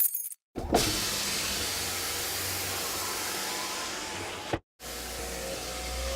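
A small electric motor whirring steadily with a hiss and a low hum for about four seconds, cutting off suddenly. After a brief pause it starts again and runs on steadily.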